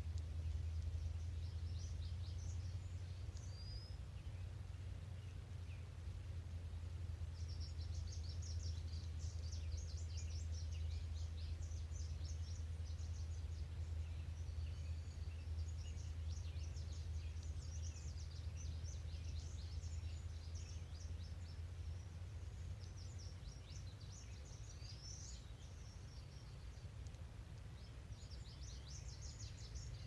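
Songbirds singing quick, high twittering phrases, a few at first and then almost without pause from about a quarter of the way in, over a steady low hum.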